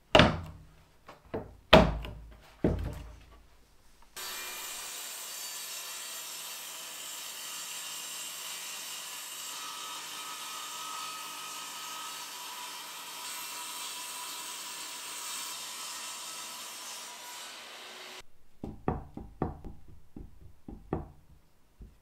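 Toggle clamps locking down onto a wooden sled, three sharp clacks in the first few seconds. Then a table saw ripping a live-edge slab on the sled, a steady hiss that starts and stops abruptly after about fourteen seconds. Near the end come a run of light wooden knocks as a block is set down and handled on a board.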